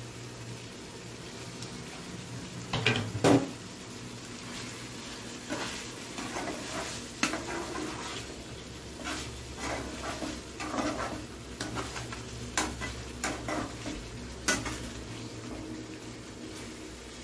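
A slotted spatula stirs thick chicken masala in a frying pan, scraping and clacking against the pan in an irregular run of strokes. A couple of loud knocks come about three seconds in.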